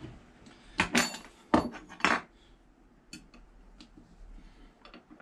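Metal tool parts being handled while a quarter-inch bit is fitted to a trim router: a few sharp metallic clinks about a second in and again around two seconds, then only faint light taps.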